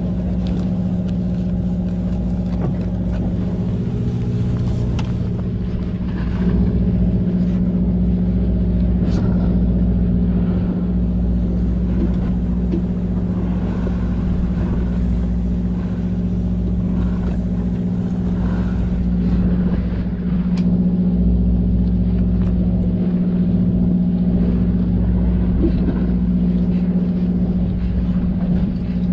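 A fishing boat's engine running steadily, a constant low hum, with a few light clicks on top.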